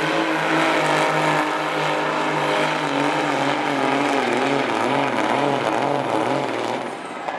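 Big-rig diesel engine of a Peterbilt semi tractor under full load pulling a weight-transfer sled, running hard and steady, then wavering up and down in pitch through the second half of the pull. Near the end it drops off as the driver lets off at the end of a full pull.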